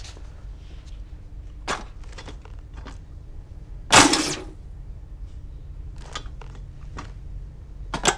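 An old electrical torture apparatus humming steadily, with scattered switch and mechanism clicks and one loud sharp crackling burst about four seconds in, then a quick run of clicks near the end. The operator blames the trouble on a short in the wiring.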